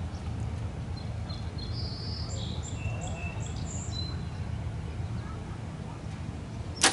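Small birds chirping over a steady low outdoor rumble, then, near the end, a single sharp snap as a compound bow is shot from full draw.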